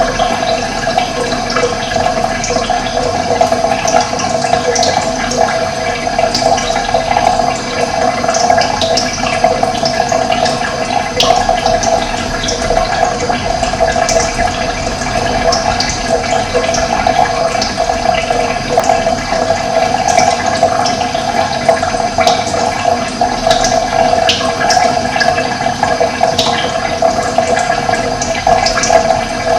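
Running water, a steady rush, with small birds chirping briefly now and then over it.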